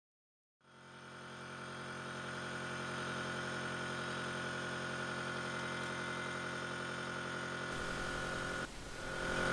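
Hercus small CNC lathe's spindle motor starting up, running up to speed over a couple of seconds, then running with a steady whine; a short drop about a second before the end, after which it runs louder.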